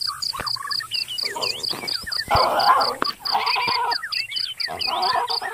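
Wild animal and bird calls: short chirps and several harsh, noisy calls over a steady rapid pulsing call, about three to four pulses a second, like an insect or frog chorus.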